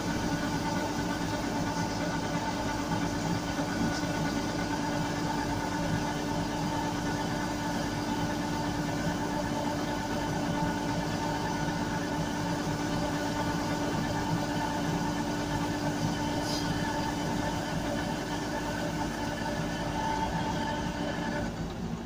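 Yanmar AW82V rice combine harvester running steadily with its unloading auger pouring threshed paddy grain from the spout; the steady machine tones drop away near the end as the grain flow stops.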